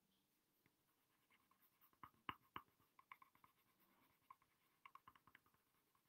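Faint scratching of a coloured pencil shading on paper in short, quick strokes, starting about a second in, with a few sharper ticks just after two seconds.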